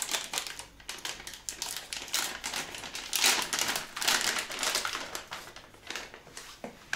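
Plastic dog-treat packet crinkling and crackling in the hands as it is worked open and the treats are taken out, in a quick irregular run of sharp crackles, loudest a little after three seconds in.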